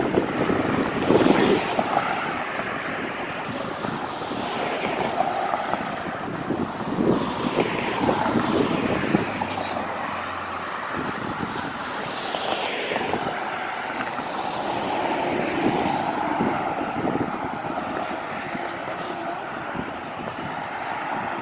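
Road traffic: cars driving past one after another on a multi-lane street, each pass swelling and fading away with a falling pitch of tyre and engine noise.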